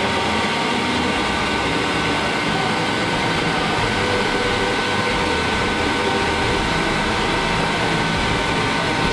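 Olive oil mill machinery running steadily: a loud, even hum with several steady whining tones, from the vertical centrifuge spinning the olive oil off the paste.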